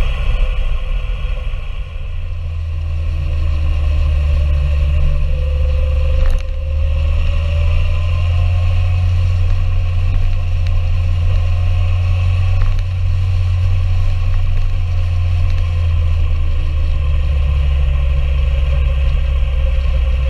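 Motorcycle engine running under way, its note rising slowly through a gear for several seconds, under a heavy low rumble of wind on the microphone. A single sharp click about six seconds in.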